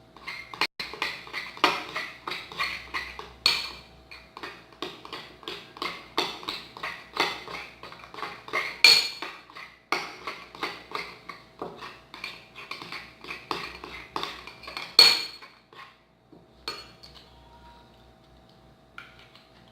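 A utensil stirring slime in a small pot, knocking and scraping against the pot's sides about twice a second as the activator is mixed in. The stirring stops about three-quarters of the way through, leaving only faint handling sounds.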